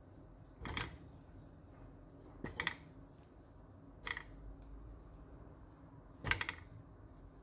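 Raw chicken pieces set one at a time into an empty stainless steel pot: four short thuds, each with a brief metallic ring from the pot, the last the loudest.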